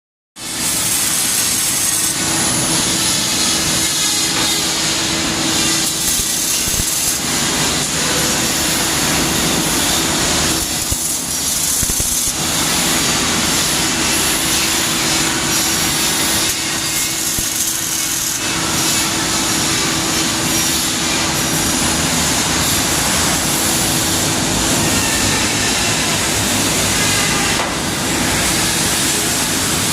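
Welding arc crackling and sizzling steadily, with a faint steady hum under it.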